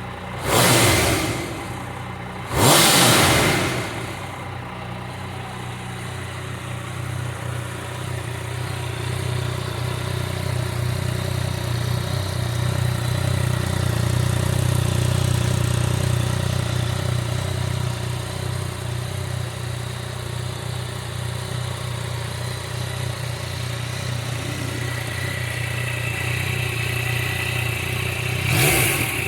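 Yamaha MT-09's three-cylinder engine idling steadily. The throttle is blipped twice in the first few seconds and once more near the end, each rev rising sharply and dropping back to idle.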